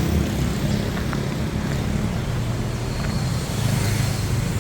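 Street traffic: a motor vehicle engine running steadily close by, its low hum over road noise.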